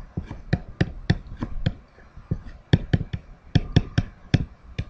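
A pen stylus tapping and clicking on a tablet screen while handwriting: irregular sharp ticks, a few a second, with a short pause about two seconds in.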